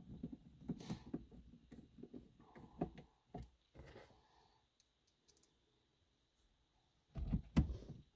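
Irregular clicks and knocks of a screwdriver and hands at a car's dash as the radio's T20 mounting screws are driven back in. A quiet stretch comes midway, then a quick run of louder knocks near the end.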